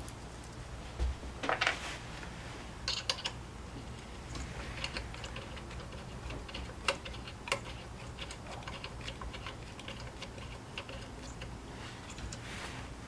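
Irregular small clicks, taps and light rattles of brush-cutter parts and tools being handled during reassembly, with a couple of louder clusters of clicks in the first few seconds and a soft rustle near the end, over a faint low hum.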